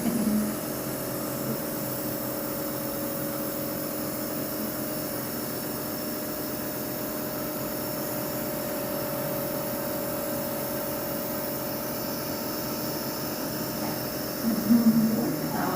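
Steady hum and hiss with a constant low tone throughout, like a running machine; a voice comes in near the end.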